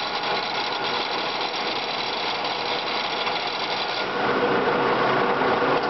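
Horizontal boring mill running with its table traversing along the bed ways: a steady mechanical whir carrying several steady tones, which changes and grows louder about four seconds in.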